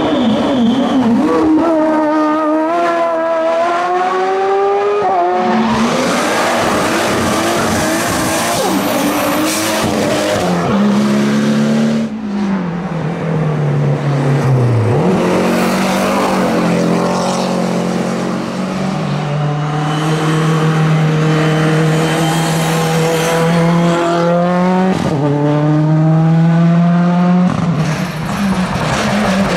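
Hillclimb race car engines at full throttle, pitch rising through each gear and dropping sharply at the shifts, then holding high revs for long stretches.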